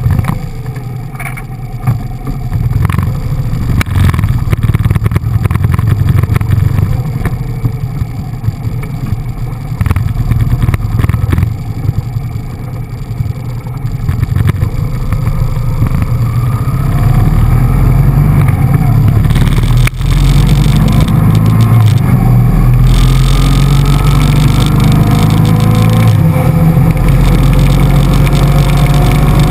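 Motorcycle engine running at low speed, then revving up several times in the second half, its pitch climbing with each pull.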